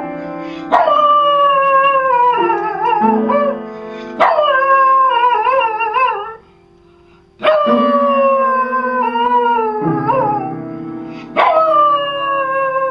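A dog howls four times while pressing piano keys with its front paws. Each howl starts high, slides downward and wavers at the end, over sustained piano notes. There is a short pause about halfway through.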